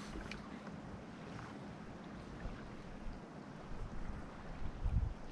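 Wind buffeting the microphone over open water, with gusts rumbling harder near the end.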